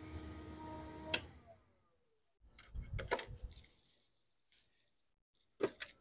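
Small electric fan in a homemade styrofoam-box cooler running with a steady hum, switched off with a sharp click about a second in; its whine falls in pitch as the fan spins down. A few clicks and knocks follow.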